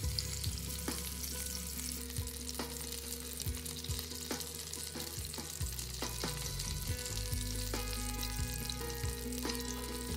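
Chicken drumsticks sizzling and crackling in shallow hot oil in a nonstick frying pan, with a few sharp clicks as the pieces are turned in the pan.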